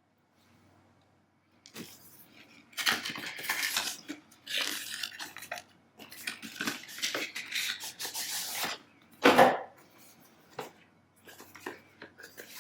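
Packaging being handled during an unboxing: rustling and scraping in uneven stretches, with a sharp knock about nine seconds in and a few small clicks after it.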